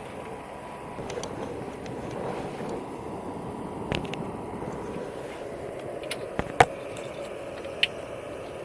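Steady outdoor background noise with a faint hum, broken by a few short, sharp clicks and knocks in the second half.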